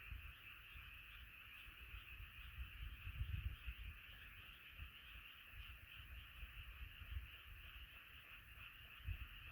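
A faint, dense chorus of frogs calling together, a steady massed din with no single caller standing out, over irregular low rumbling bumps.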